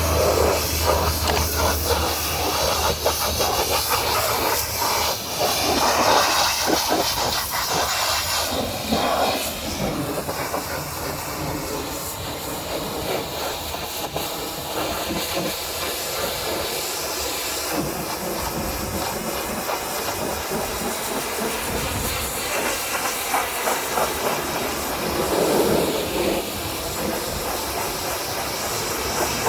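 High-pressure washer jet spraying water onto a muddy truck: a steady loud hiss of spray whose tone shifts now and then as the jet moves over different surfaces.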